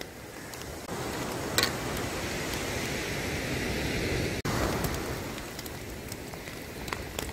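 Heavy rain falling in a steady hiss, with one sharp click about one and a half seconds in.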